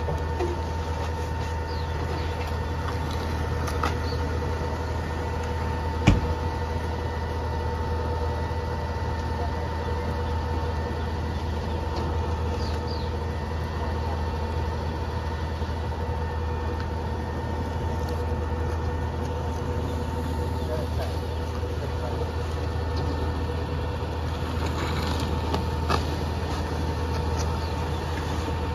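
Mack LR McNeilus rear-loader garbage truck idling steadily, a low engine note with a constant whine over it. A single sharp bang about six seconds in, with a few lighter knocks.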